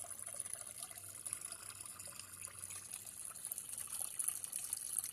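Garden pond waterfall, water trickling and splashing steadily into the pond.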